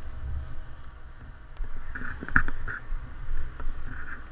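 Side-by-side UTV engine running at low speed with a steady low rumble, pulling up beside a fuel pump; a single sharp knock about two and a half seconds in.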